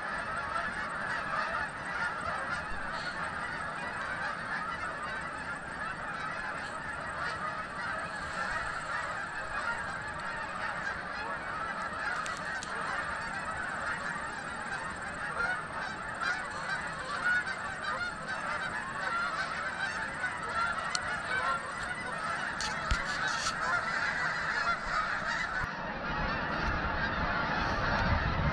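A large flock of Canada geese honking without pause, many calls overlapping into a continuous din.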